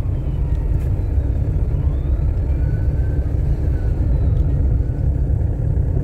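Steady low rumble of a car driving, heard from inside the vehicle: engine and road noise.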